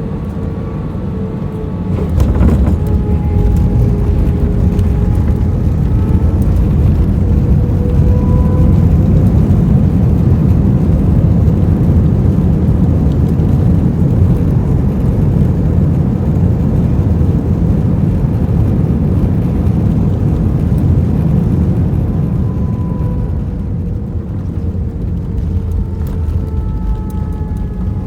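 Airliner landing heard from inside the cabin: about two seconds in a sudden jolt, and the low engine and runway rumble jumps up and stays loud, with faint whining engine tones sliding in pitch, before easing off near the end. This is the sound of touchdown and the braking rollout.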